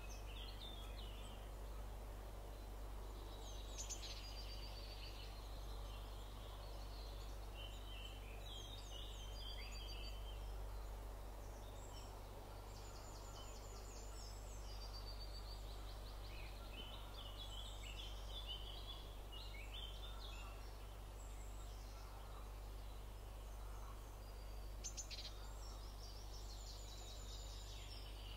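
Several small songbirds singing in short, repeated phrases, one after another, over a steady low hum of background noise.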